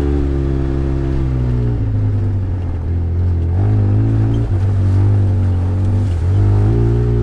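Off-road vehicle's engine running at riding speed. Its pitch holds steady, drops about two seconds in, then climbs and dips again several times as the throttle changes.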